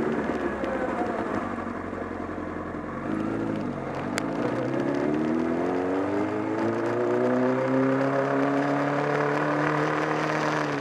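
Honda CBR1000RR inline-four engine under way: its pitch falls as the bike slows, gives a short blip about three seconds in, then climbs steadily as it accelerates and holds high near the end. The owner reports this engine has developed a flapping, clattering noise from around the engine along with a loss of torque.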